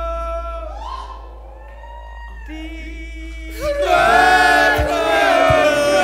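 Live music: a male voice holding long sung notes, then, about three and a half seconds in, a loud passage of several voices singing together.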